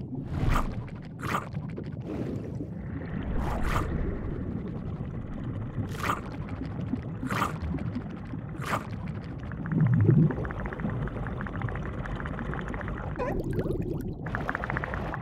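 Cartoon sound effects for an animated seal eating underwater: a low underwater rumble beneath about seven short, sharp gulps in the first nine seconds. About ten seconds in comes a low bubbling, then a fine rattling buzz as the seal swells up.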